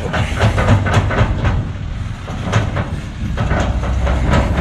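Kubota skid steer's diesel engine running under work, with repeated knocks and clanks as it pushes material with its bucket.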